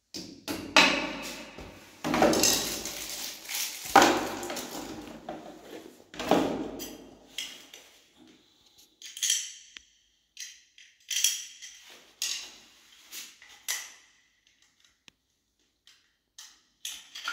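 Hand-tool work on a tiled wall: a screwdriver scraping and knocking at a wall fixing, in loud rough bursts over the first seven seconds. It is followed by a run of short, light clicks and clinks as small plastic and metal shower-holder parts are handled and screwed to the wall.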